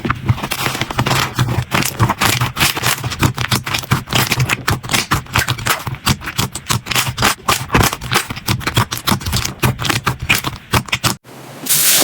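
Slime being squished and poked by hand, giving a fast, uneven run of sticky clicks and crackles. It cuts off abruptly about 11 seconds in, and a brighter, hissier crackling starts.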